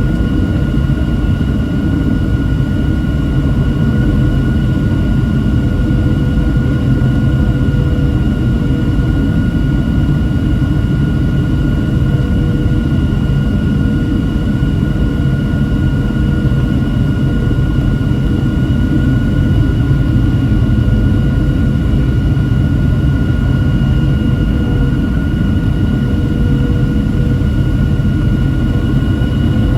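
Cabin noise of a Boeing 737-700 airliner in flight, heard from a seat by the wing: a steady, heavy rumble of its CFM56 jet engines and the airflow, with a few steady whining tones over it.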